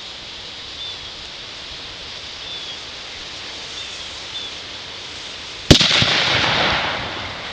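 Loud detonation of about 2 ml of ethylene glycol dinitrate (EGDN) packed in a cinder block and set off by an HMTD blasting cap, about three-quarters of the way in. It is one sharp crack followed by about a second and a half of fading echo.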